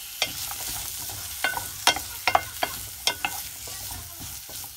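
Carrot and radish chunks sizzling in hot oil in a ceramic-coated pot, with a steady hiss, while a wooden spatula stirs them and knocks against the pot and vegetables about eight to ten times.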